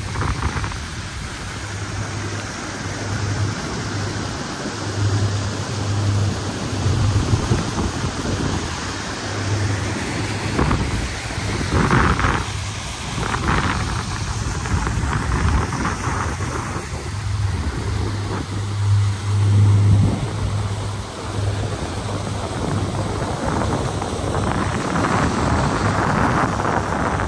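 Wind buffeting the microphone of a moving speed boat, with gusty low rumbling over a steady rush of noise.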